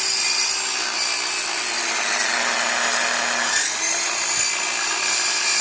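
Evolution EVOSAW180HD 7-1/4-inch steel-cutting circular saw running steadily under load as its blade cuts through a wooden plank.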